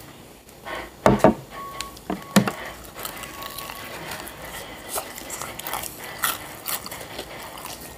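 Close-up eating sounds of Popeyes fried chicken: mouth clicks and smacks as fingers are licked and food is chewed. A few sharp knocks come about a second in and again about two and a half seconds in, with scattered smaller clicks from handling the paper chicken box.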